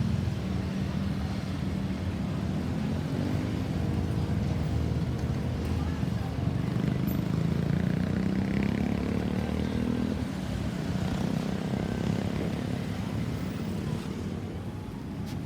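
Street traffic: a motor vehicle's engine runs past with a rising and falling pitch, loudest about eight seconds in, over a steady rumble of road noise.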